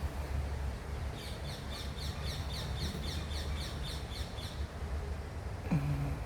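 A bird giving a fast, even series of high chirps, about five a second for some three seconds, over a low steady rumble of outdoor background noise. A brief low voice-like sound comes near the end.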